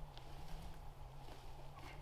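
Wooden poles being handled: a couple of light knocks over a faint low steady rumble.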